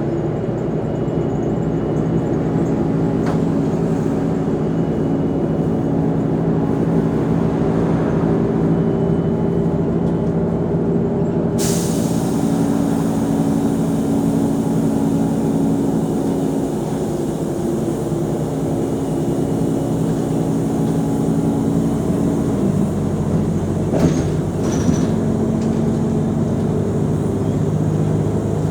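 Mercedes-Benz O345 Conecto G articulated bus's diesel engine running steadily under way. A hiss sets in suddenly near the middle, and the engine note steps down about three quarters of the way through, with a couple of light clicks just after.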